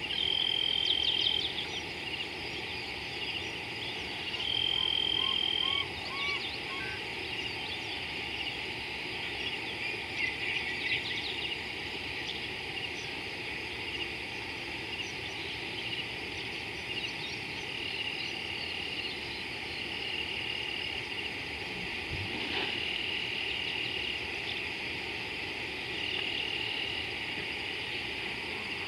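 Dusk chorus of frogs and insects: a constant dense chirring, with high, level notes about a second long that come again every few seconds.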